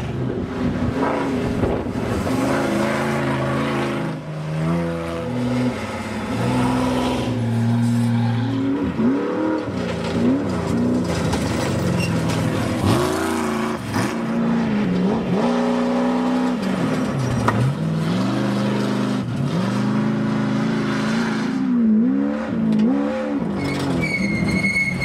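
Off-road desert racing vehicle engines revving hard, the pitch climbing and dropping again and again as the throttle is opened and closed. A brief high whine comes in near the end.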